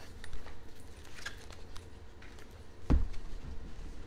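Handling noise as a picture book is moved away from the camera: scattered small clicks and rustles, then a single dull thump about three seconds in.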